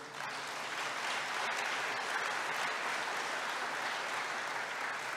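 Congregation applauding: a steady run of many hands clapping.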